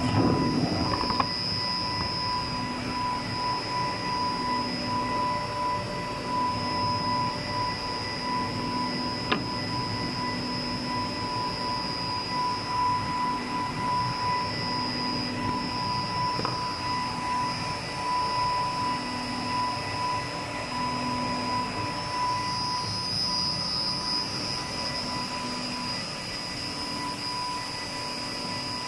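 F586HC high-speed edge banding machine running with panels feeding through: a steady mechanical drone with high, constant whining tones, and a lower hum that pulses on and off about every one and a half seconds. A single sharp tick sounds about nine seconds in.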